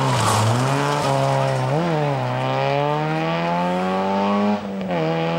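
Small hatchback rally car's engine revving hard through a hairpin and accelerating away. Its pitch dips at first and gives a quick blip about two seconds in, then climbs steadily until a gear change drops it shortly before the end, after which it climbs again.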